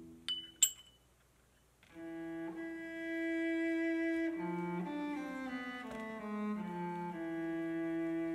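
Two sharp clinks with a short ringing, a metal spoon knocking against a ceramic bowl, then a brief gap before slow cello music comes back in with long held notes.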